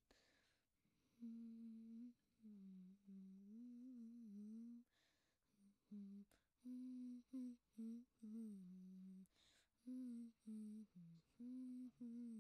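A boy humming a slow melody softly to himself, in short phrases with pauses and quick breaths between them.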